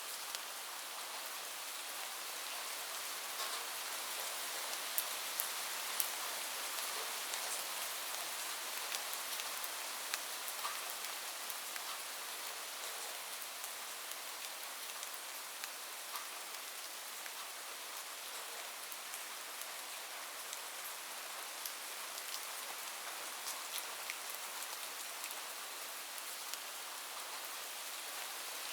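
Steady rain falling on a roof: an even hiss with scattered sharp drop ticks standing out, a few of them louder around the fifth and sixth seconds.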